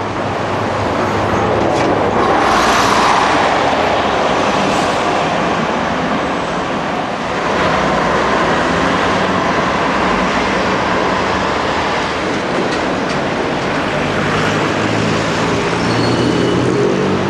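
Sheffield Supertram articulated trams (Siemens-Duewag) running on street track: the rumble of one tram moving off, then a second tram approaching and passing close, its motor hum rising near the end. A few faint high squeals from the wheels on the rails.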